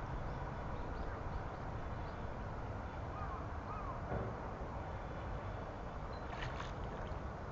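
Steady low outdoor background rumble with faint, short bird calls scattered through it, and a brief sharper sound a little before the end.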